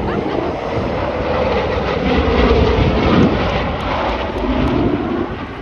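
Boeing B-29 Superfortress's four Wright R-3350 radial piston engines running as the bomber flies past overhead, the sound swelling to its loudest a little past halfway.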